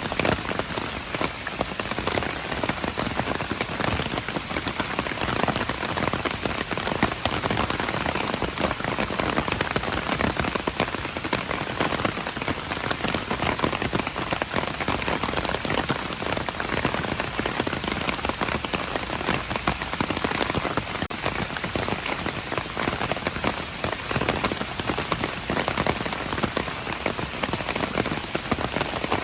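Steady rain falling on hard surfaces, a dense even patter of drops.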